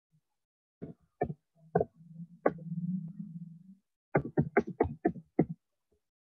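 Typing on a computer keyboard: a few separate key clicks, then a quick run of about eight keystrokes about four seconds in. A low steady hum sounds for about two seconds in the middle.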